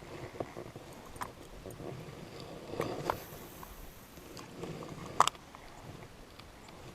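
Fishing rod and reel being handled while casting and retrieving: scattered small clicks and knocks, a brief faint high hiss in the middle, and one sharp click about five seconds in.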